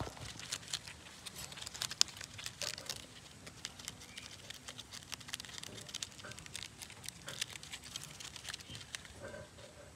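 Rabbit chewing and tearing at leaves: an irregular run of quick crunchy clicks and crinkles.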